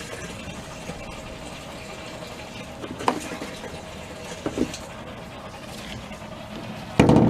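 Jumped electric fuel pump of a GMT400 pickup running with a steady hum as it pumps old gasoline out of the tank; the tank is almost empty and the pump is close to running dry. A brief loud noise comes near the end.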